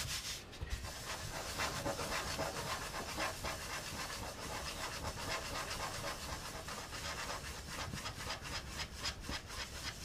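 Bread dough being rounded by hand on a floured wooden worktop: the cupped hand circles the dough piece quickly, giving a steady run of short, rhythmic rubbing strokes of skin and dough against the board.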